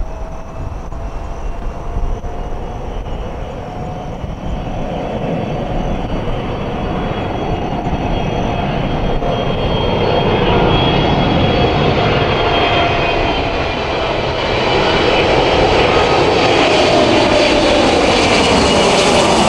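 Boeing 777 twin-engine jetliner on approach to land, its turbofan engines growing steadily louder as it nears. High engine whine tones come in about halfway, and a lower tone slides down in pitch near the end.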